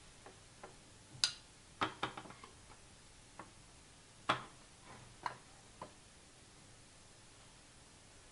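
Glass storage jars with wooden lids being moved and set down on a wooden tray: a series of short, light knocks and clinks, about seven in all, some in quick succession.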